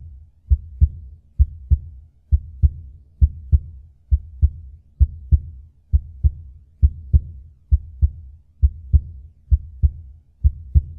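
Heartbeat sound effect: a steady double thump, lub-dub, repeating a little faster than once a second over a faint low hum.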